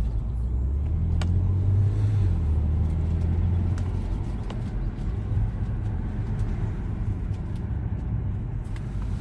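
Audi S5 being driven on a road test after new tires were fitted: steady low engine and road rumble.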